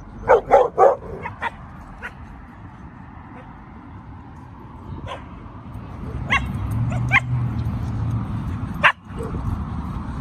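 Dogs barking: three loud barks in quick succession right at the start, then scattered single barks and yips.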